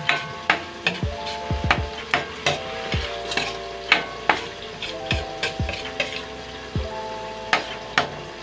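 Spatula scraping and knocking against a stainless steel wok while stirring corned chicken frying in oil, about two knocks a second, each leaving the wok ringing briefly, over a steady sizzle.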